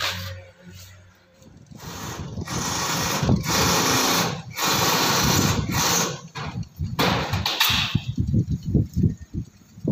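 Electric screw gun driving self-drilling roofing screws through corrugated aluminium-zinc coated steel (tôn lạnh) roof sheets. The drilling comes in several bursts of about a second each, followed by a few sharp clicks.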